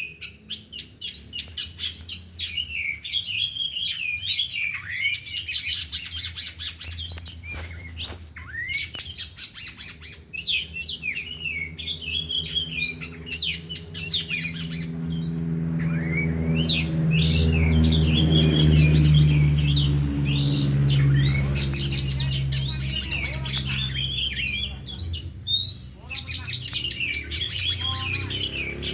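Several oriental magpie-robins singing at once: fast, varied chirps and whistled phrases that run together, full of mimicked calls. A low steady drone comes in about halfway through, is loudest around two-thirds in, and fades near the end.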